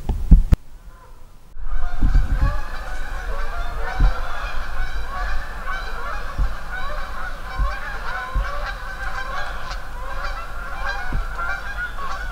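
A flock of Canada geese honking, many short calls overlapping in a continuous chorus that starts abruptly about a second and a half in. Just before it there is a loud thump, and a few dull low bumps sound under the honking.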